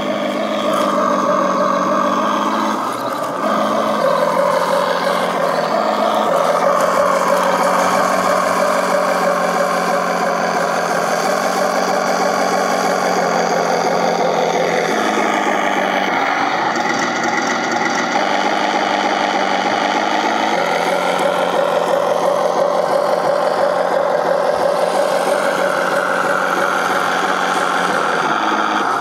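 Radio-controlled model KV-1 tank running: a steady mechanical engine-like drone and whine that shifts pitch a few times as it drives.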